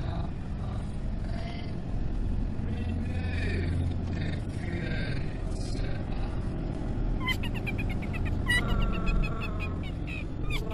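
Steady road and engine rumble inside a moving car's cabin. In the last few seconds come a quick run of clicks and short high chirping sounds.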